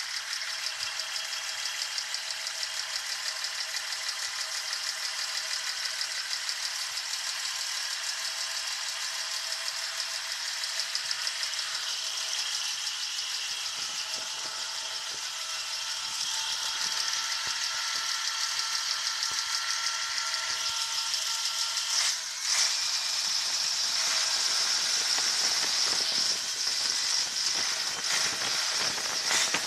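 Engine of a 1966 Volvo B-715 running with a fast, even rattle, growing louder about two-thirds of the way through.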